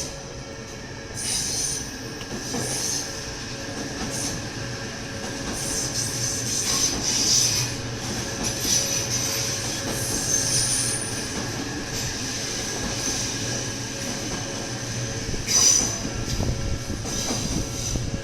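Odakyu electric train running through a level crossing: a steady rail rumble, with the wheels squealing in high-pitched bursts several times, loudest near the end.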